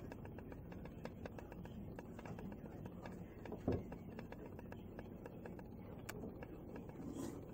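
Crows tapping on a skylight and roof: a run of small clicks, with one louder knock a little past halfway.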